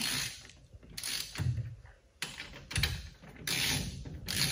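Hand tools at work on a wheel: several short bursts of metallic clicking and rattling, each under a second long, about a second apart.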